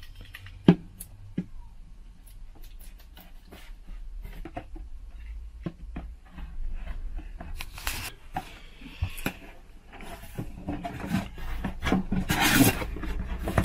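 A cardboard carton being opened with a knife: a sharp tap, then scattered clicks and rasping scrapes as the blade works along the box. Near the end the flaps are pulled open, and the cardboard rubbing and scraping is loudest.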